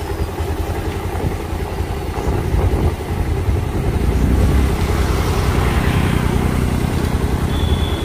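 Motorbike engine running steadily while riding along an unpaved dirt road, with wind noise on the microphone.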